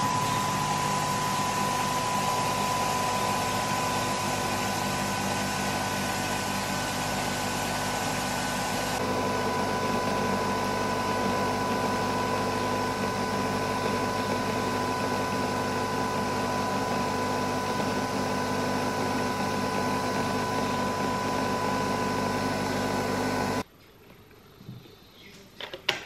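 Nespresso coffee machine brewing, giving a loud steady mechanical hum with a high steady whine. The sound shifts slightly about nine seconds in and cuts off suddenly near the end.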